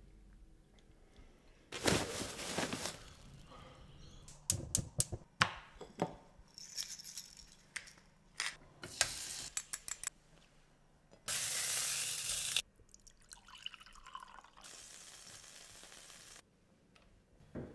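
Kitchen sounds of a steak being prepared, edited in quick succession: knocks and clicks, a pepper mill grinding, and two spells of hissing, one short and loud about eleven seconds in and a longer, quieter one near the end.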